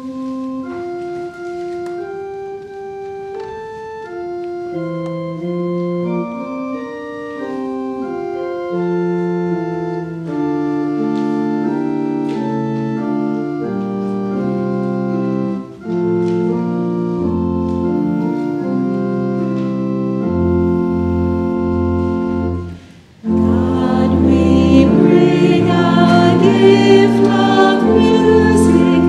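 Pipe organ playing a hymn tune as an introduction, steady held chords changing note by note. About 23 seconds in it breaks off briefly, then the choir and congregation start singing the hymn with the organ.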